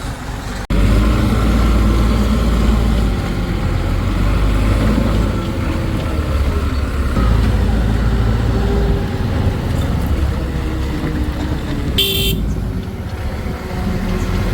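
Heavy diesel engine running with a deep, steady rumble that starts abruptly about a second in, and a short horn toot near the end.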